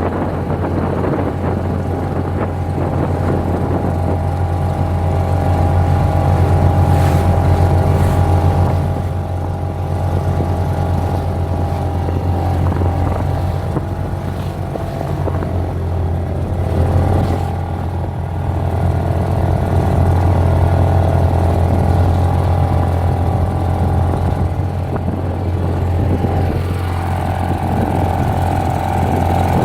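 British Seagull two-stroke outboard motor running steadily under way, a low, even engine note whose loudness swells and eases a little.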